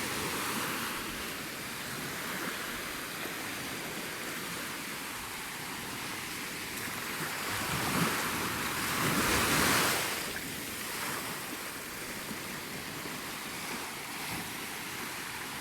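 Sea waves washing onto a beach, a steady rush of surf that swells into one louder breaking wave about two thirds of the way through.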